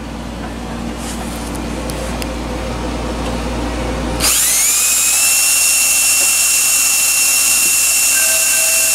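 Cordless drill that spins up suddenly about four seconds in and runs on at a steady high whine, turning a rod chucked in it while side cutters are held against it to shave the rod down to size.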